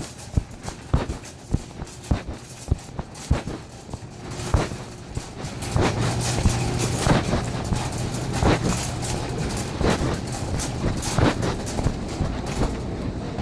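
Phone microphone muffled inside a pocket and rubbing against the fabric with each walking step, giving rhythmic thumps and scrapes about twice a second. About six seconds in, a louder steady rumble with a low hum joins.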